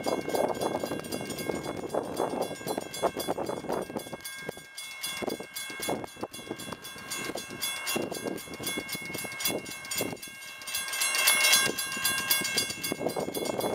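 Railroad grade-crossing warning bell ringing steadily in evenly spaced strokes, over changing background noise. The crossing signals are activated, warning of an approaching train.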